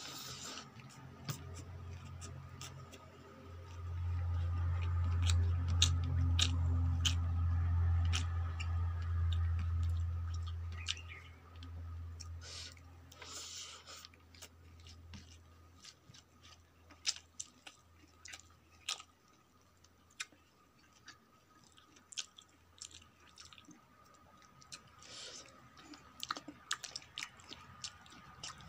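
Close-miked chewing of a handful of rice and leafy greens, with sharp crunches and wet mouth clicks scattered throughout. A low rumble swells for several seconds in the first half and is the loudest sound.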